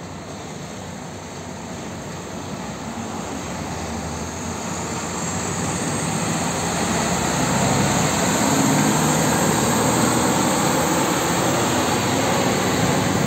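Diesel engine of a Mitsubishi Fuso turbo tractor-trailer running as the truck approaches and drives past, growing steadily louder and loudest over the second half. A high whine climbs in pitch as it nears.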